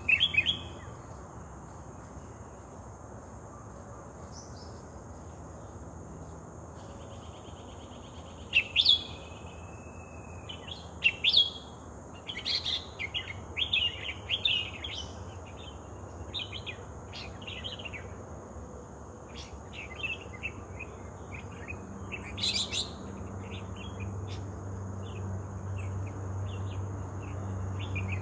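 Bulbuls (merbah) calling: scattered short chirps and whistled notes, with a quick run of calls around the middle, over a steady high insect drone. A low hum grows near the end.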